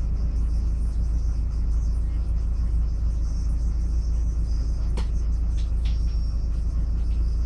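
Steady low rumble inside a city bus, from its diesel engine and running gear. A single sharp click sounds about five seconds in, followed by a brief thin high tone.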